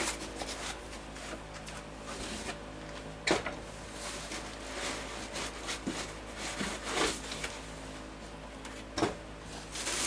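Cardboard and foam packing being handled and lifted out of a shipping box: scattered rustling and scraping with a few sharper knocks, the strongest about a third of the way in, near two-thirds and near the end.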